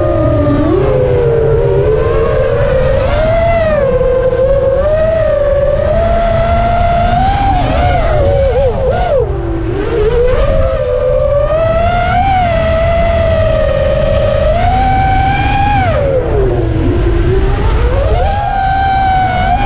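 FPV freestyle quadcopter's brushless motors and propellers whining, the pitch rising and falling continuously with the throttle, over a steady low rumble of wind on the onboard camera's microphone. The whine sinks low twice, about nine seconds in and again about sixteen seconds in.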